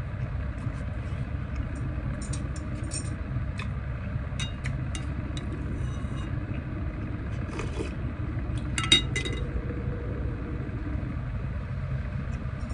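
Eating at a table: scattered small clicks and scrapes on a ceramic plate, with one sharper ringing clink about nine seconds in, over a steady low hum.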